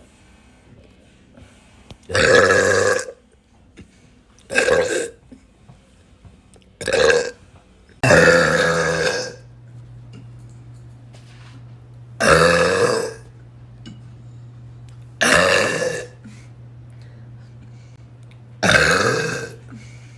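A woman belching loudly seven times in a row, each burp lasting from half a second to a little over a second, with pauses of one to three seconds between them.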